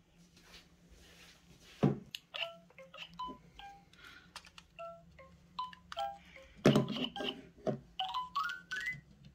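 Short electronic beeps and chimes at changing pitches from the speakers of LEGO Super Mario and Luigi interactive figures, with a couple of knocks as the figures are handled. Near the end comes a quick rising run of beeps.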